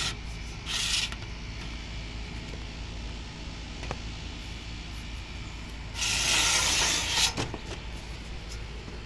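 Handling noise from a perforated metal gutter guard panel: a short scrape just under a second in and a longer scrape lasting over a second near the end, over a steady low rumble.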